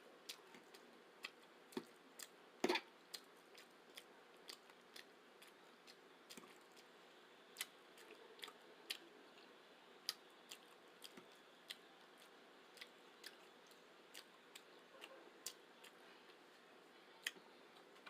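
A person chewing spaghetti close to the microphone: quiet chewing with scattered sharp, wet mouth clicks at an uneven pace, the loudest about two and a half seconds in.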